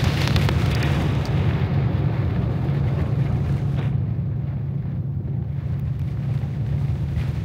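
Steady low rumble of a vehicle's engine and tyres on a wet highway, heard from inside the cabin. A higher hiss of rain and spray thins out after the first couple of seconds.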